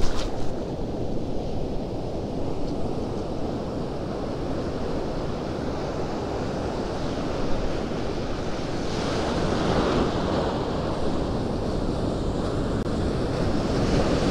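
Ocean surf washing in around the feet, a steady rushing wash with wind buffeting the microphone; the wash grows louder about two-thirds of the way through as a wave runs up.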